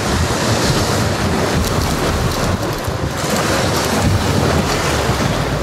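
Sea surf washing against shore rocks, mixed with wind buffeting the microphone: a loud, steady rushing noise.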